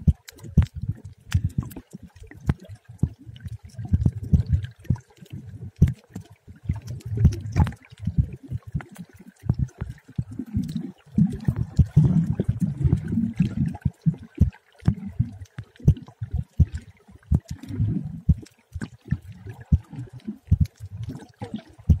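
Muffled underwater water noise picked up by a camera held below the surface: an irregular low sloshing and rumbling of moving water, broken by many small clicks and knocks.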